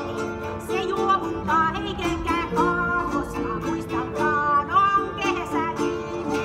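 Live medieval-style music: a harp and two lute-type plucked string instruments playing together, with a woman singing over them in a wavering voice.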